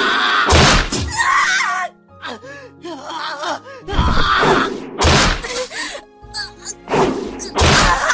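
A run of about five heavy thudding blows, struck as sound effects over tense background music with warbling held tones.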